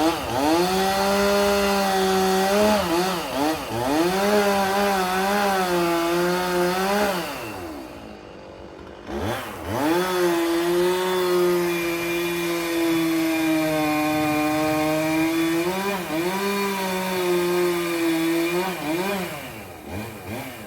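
Two-stroke chainsaw running at full throttle in a felling cut through a tree trunk, its pitch dipping each time it bogs down in the wood. About seven seconds in it falls back to idle for a couple of seconds, then revs up again and keeps cutting.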